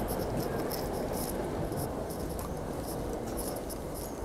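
Footsteps on a concrete station platform, irregular short clicks, over a steady low rushing noise.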